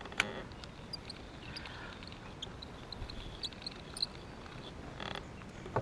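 Outdoor ambience with scattered short, high animal chirps and a sharp click just after the start.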